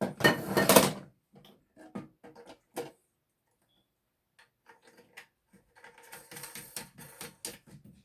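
Clicks and rattles of hard plastic parts as a new toilet fill valve is handled and fitted in the tank: a loud scraping rattle at the start, a run of separate clicks, a short pause, then a longer clattering stretch near the end.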